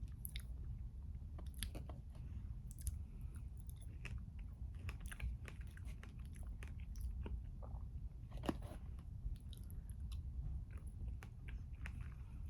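Close-miked chewing and biting of brownie with strawberries and Greek yogurt: irregular soft, moist mouth clicks, with one sharper click about eight and a half seconds in, over a steady low hum.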